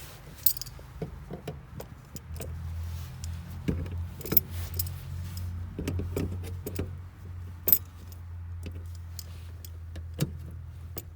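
Scattered sharp metallic clicks and clinks of hand tools and fasteners as the fuel sender access cover's hardware is tightened down. A steady low hum runs underneath.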